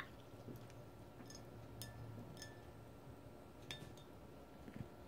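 A few faint, light clinks of a paintbrush tapping against a glass water jar, scattered over several seconds with a brief ring after each.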